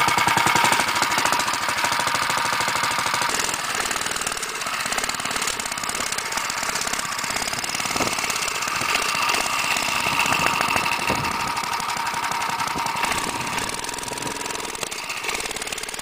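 Tecumseh 4 hp snowblower engine on a home-built minibike, running just after a pull-start with a rapid, even firing beat.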